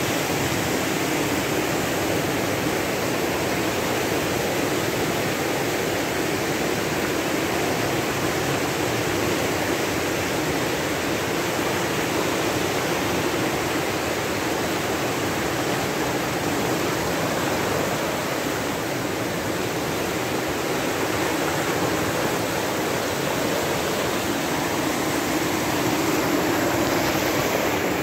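Muddy floodwater rushing steadily down a river channel: a loud, even wash of flowing water.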